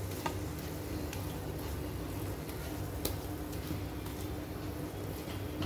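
Spatula pushing and folding thick sooji halwa around a nonstick pan: soft scraping and squishing, with light clicks of the spatula against the pan, the sharpest about three seconds in. The halwa is fully cooked, the ghee separated from it. A steady low hum runs underneath.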